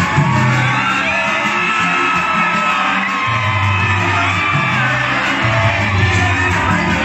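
Loud live concert music through the PA of a large hall, with a deep, repeating bass line, a male singer on microphone and the crowd whooping and shouting along.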